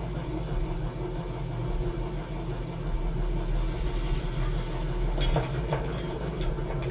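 Steady low mechanical hum, like an engine running, with a few short sharp clicks about five seconds in.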